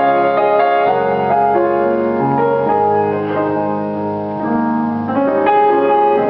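Piano playing the opening of a song, held chords under a moving melody line.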